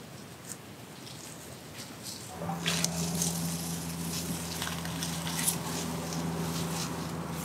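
Faint rustling of plastic bird netting being pulled out, then, from about two and a half seconds in, steady crackling of footsteps and netting dragged over dry leaves and dirt, over a steady low hum.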